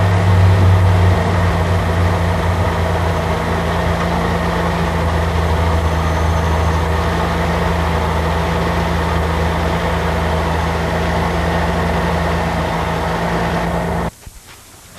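Motor vehicle engine idling steadily, with a constant low hum that cuts off abruptly about a second before the end.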